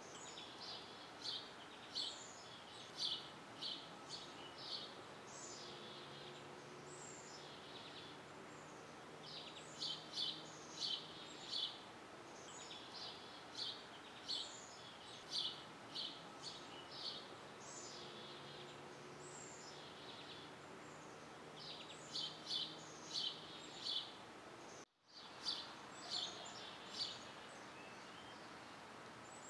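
Small birds chirping and singing in quick clusters of short high notes, repeated every second or two, over a faint steady background hiss. The sound drops out for a moment about 25 seconds in.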